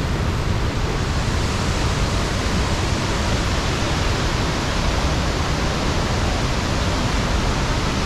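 Iguazu Falls' waterfalls: a steady, unbroken rush of falling water.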